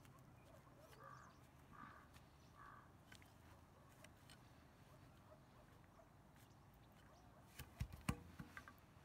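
Faint chops of a long-handled hand hoe breaking up loose dug soil, with a cluster of sharper knocks and thuds near the end. A bird calls faintly three times about a second in.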